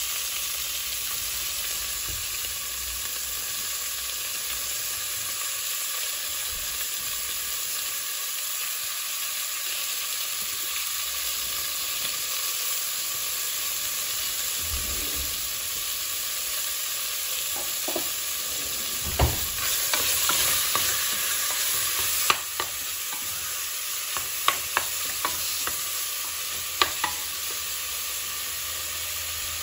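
Chicken pieces sizzling steadily as they brown in olive oil in a pressure cooker pot. In the second half a wooden spoon turns them, giving a brief louder sizzle and a series of sharp knocks against the pot.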